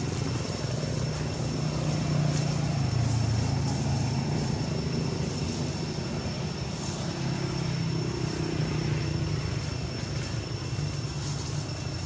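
A steady, low engine drone that wavers slightly in pitch, with a faint constant high tone above it.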